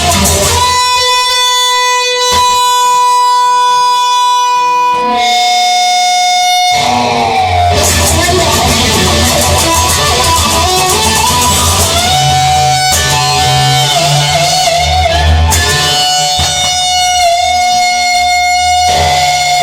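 Instrumental break of a song: guitar playing long held lead notes over a bass line, with no singing.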